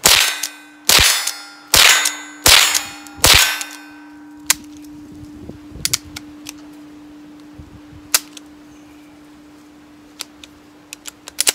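Five fast shots from a Rossi pump-action .22 LR rifle, a little under a second apart, followed by several faint metallic clicks of the action. The string stalls on a light primer strike, a round that failed to fire.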